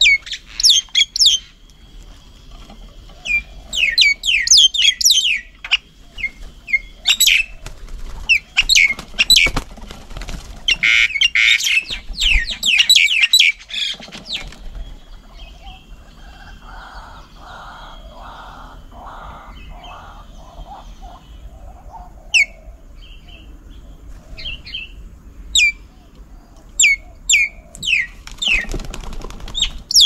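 Birds calling with many quick, high, downward-sliding chirps, in dense clusters through the first half and as scattered single notes near the end. A run of about six lower, evenly spaced pulsed notes comes in the middle.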